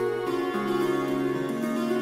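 Instrumental background music, a melody moving between held notes.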